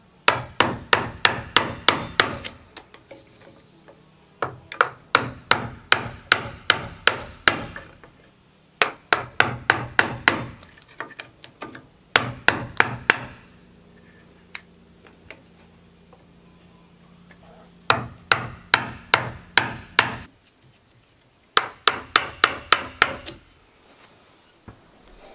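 A chisel being driven into the end of a timber post, struck in six quick runs of sharp blows, about four or five a second, with short pauses between the runs.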